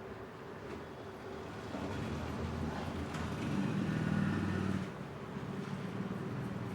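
A motor vehicle's engine running nearby: it grows louder for a few seconds, then drops away sharply about five seconds in.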